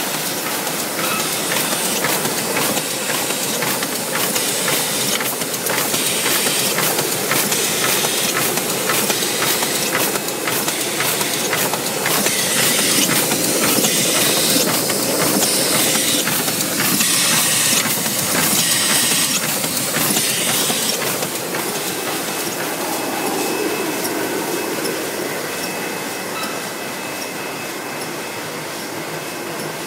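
Meccanotecnica Aster 2000 book-sewing machine running at speed: a fast, continuous mechanical clatter of rapid clicks with a hiss over it. It grows louder through the middle and eases off in the last third.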